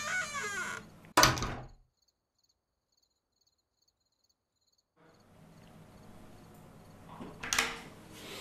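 A wavering cry, falling in pitch, fades out, then a single loud, sharp bang comes about a second in, followed by about three seconds of dead silence. Room tone returns and a second, softer knock comes near the end.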